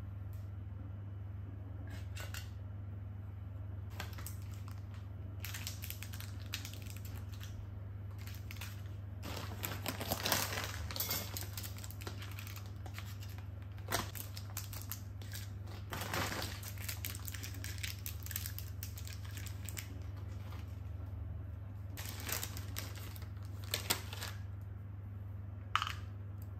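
Small plastic-wrapped snacks crinkling and clicking against a stainless-steel lunchbox compartment as they are put in by hand, in several short spells, over a steady low hum.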